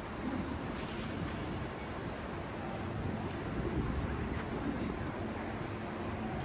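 Outdoor city ambience: a steady low rumble with no distinct events.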